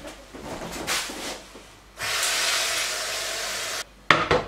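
A steady hiss for nearly two seconds that cuts off suddenly, then a sharp clank as a stainless steel pot is set down on a ceramic cooktop.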